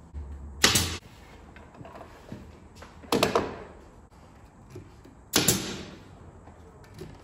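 Pneumatic nail gun firing three times, about two and a half seconds apart, each shot a sharp bang with a short hiss of air, as a rail is nailed onto a plywood cabinet box.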